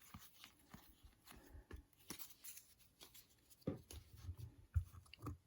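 Faint rustling and light clicking of baseball trading cards being handled and set aside, with a couple of soft thumps in the second half.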